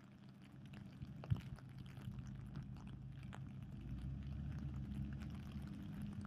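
Truck engine running with a low steady hum, growing louder about four seconds in as the truck draws near, with scattered light ticks like rain drips.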